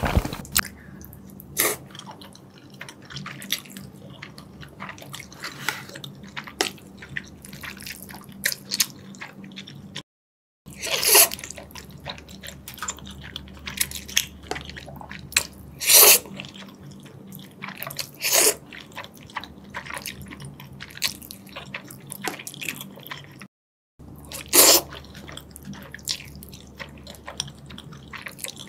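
Close-miked eating of jjajangmyeon (black bean noodles): wet chewing and lip smacks, with several loud slurps of noodles. The sound drops out completely twice, briefly.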